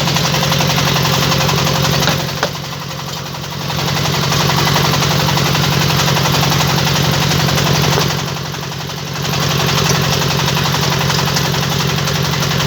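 Engine-driven brick-making machine running steadily with a fast, even pulsing. It eases off twice for about a second and a half, about two seconds in and again about eight seconds in, with a sharp click at the first dip.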